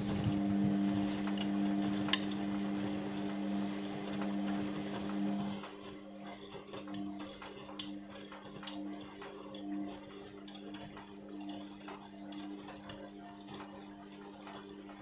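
Indesit washing machine running mid-wash: a steady low hum that drops in level about six seconds in, with scattered light clicks and taps.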